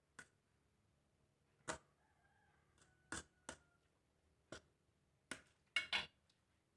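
Faint eating noises from a plate of white noodles: about eight short, sharp clicks and clinks at uneven intervals, the loudest two close together near the end.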